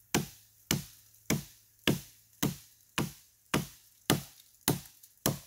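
Hatchet chopping into wood: a steady run of about ten sharp strikes, just under two a second.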